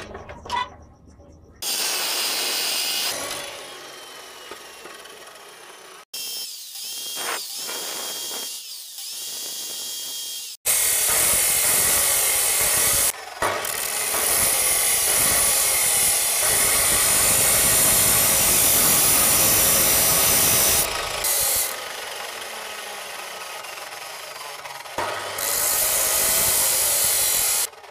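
Electric abrasive wheel grinding and cutting steel: a small steel piece is worked against the spinning wheel in several separate passes that start and stop abruptly, the longest and loudest in the second half.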